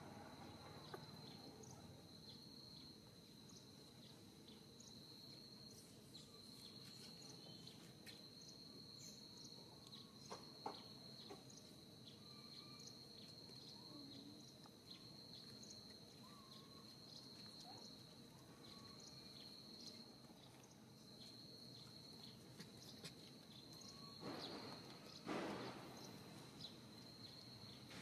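Faint ambience: an insect keeps up a steady, high-pitched chirring that pulses slightly. A few faint clicks are heard, and a brief scuffing noise comes near the end.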